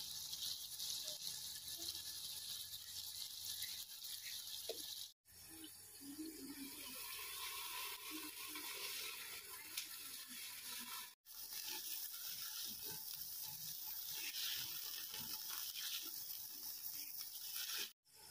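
Food sizzling in a cooking pot: a steady high hiss, cut off briefly three times, about every six seconds.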